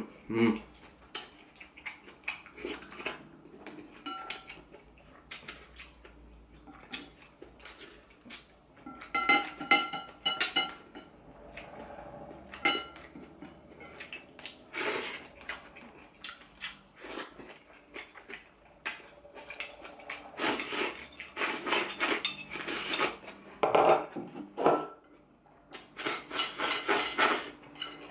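Chopsticks clicking and scraping against a small ceramic plate and bowls, with a ringing clink about nine seconds in. Loud slurping of hot pot broth and noodles from the plate comes in stretches from about twenty seconds in and again near the end.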